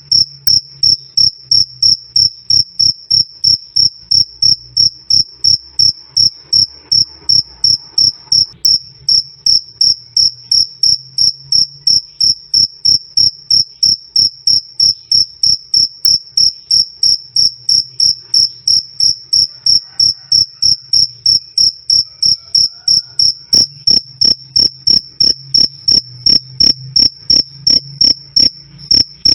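A male cricket chirping loudly in a steady, even rhythm of about three short chirps a second, each a single clear high tone.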